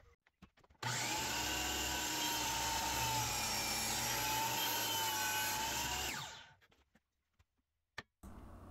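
Power tool motor switched on, running steadily for about five seconds, then spinning down and stopping.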